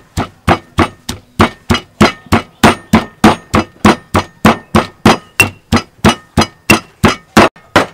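Stone pestle pounding in a heavy stone mortar: sharp, even strikes at a steady pace of about three a second.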